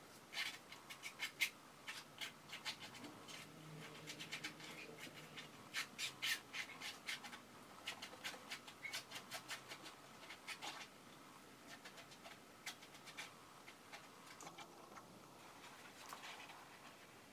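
A flat stick spreading a thick layer of white glue-and-paint base over a stretched canvas: faint scrapes and light taps, coming thick and fast for the first ten seconds or so, then only now and then.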